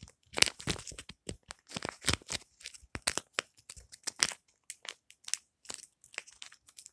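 A plastic snapper fidget toy being worked in the hand close to the microphone: an irregular run of sharp clicks, snaps and crinkles, busiest in the first half.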